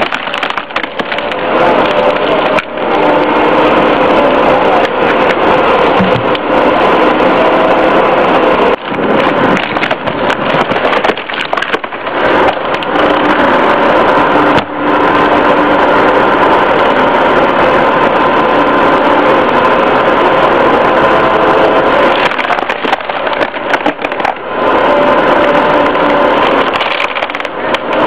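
Excavator-mounted hydraulic wood-splitter wedge forcing into a log, the wood cracking and splintering over the steady running of the excavator's engine and hydraulics.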